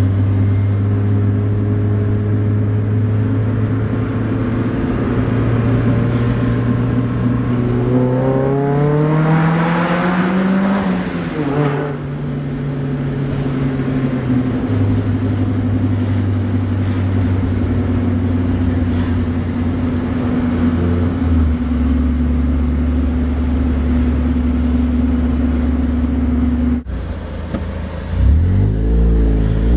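2000 Mazda Miata's 1.8-litre four-cylinder exhaust, through an Enthuza XR axle-back with a Magnaflow straight-through muffler and a straight pipe in place of the resonator, heard from the open cockpit while driving. A steady cruising drone gives way to a rise in revs about eight seconds in, which then falls away. The pitch steps down several times, and the revs rise again near the end.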